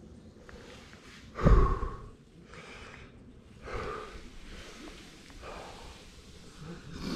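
A person breathing hard: a series of audible breaths a second or two apart, the first the loudest.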